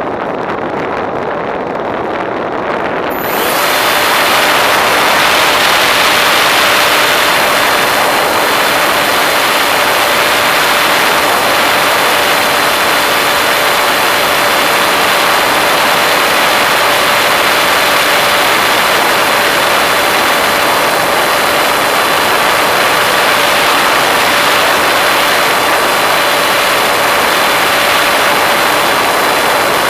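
Wind rushing over an RC model airplane as it glides. About three seconds in, its motor switches on and runs at a steady pitch: a high whine over a louder rush of air.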